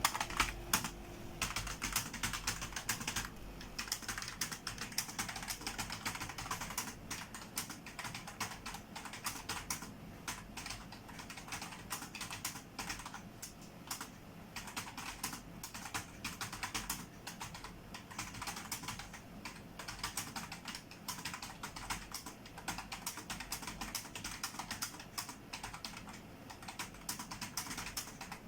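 Computer keyboard typed on fast and continuously, a dense irregular run of key clicks during a timed typing test.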